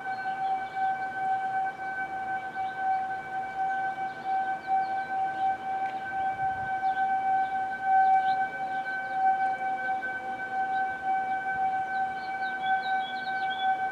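Outdoor tornado warning siren sounding a long steady tone, held at one pitch, with a fainter second siren sounding lower and sliding slowly in pitch.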